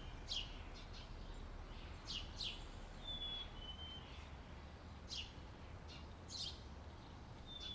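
Songbirds chirping in outdoor ambience: scattered short, sharp chirps, with a thin whistled note that steps down in pitch about three seconds in, over a steady low background rumble.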